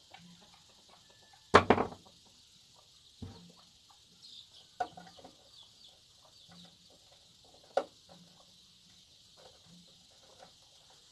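Sharp knock about one and a half seconds in, the loudest sound, then fainter clicks and taps near three, five and eight seconds in, from a screwdriver and wires being worked at a solar charge controller's terminals. A steady high hiss of insects runs underneath.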